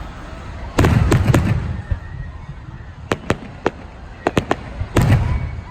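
Fireworks bursting overhead. A cluster of heavy booms comes about a second in, then a string of sharp single cracks, and another heavy boom near the end.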